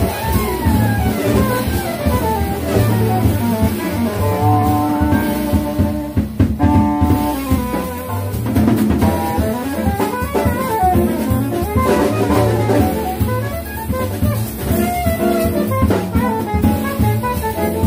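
Small jazz combo playing live: saxophone over walking upright bass, piano and drum kit.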